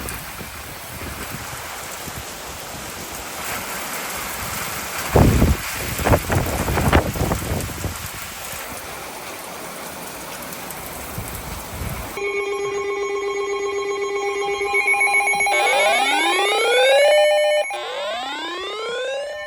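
Heavy rain pouring, with a few loud short bursts about five to seven seconds in. About twelve seconds in it cuts to electronic alarm tones: steady tones, then siren-like rising sweeps that repeat every couple of seconds.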